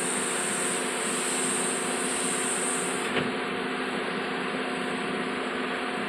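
Doosan 180W-V wheeled excavator's diesel engine running steadily while the boom lowers the bucket. A high hiss sits over it for the first half, then one short knock comes about three seconds in.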